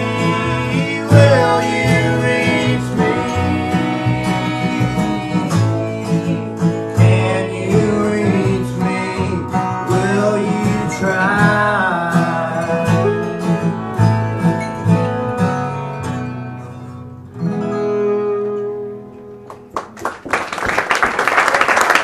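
Acoustic Americana/folk string band playing live: singing over plucked guitar, fiddle and double bass. The song ends on a held note that fades, and the audience starts applauding near the end.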